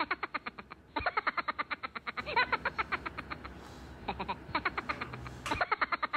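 A comic sound effect added in editing: rapid pulsing at about ten pulses a second, in several runs with short breaks.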